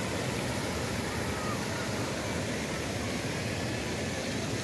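Fountain jets splashing into a pond: a steady, even rush of falling water.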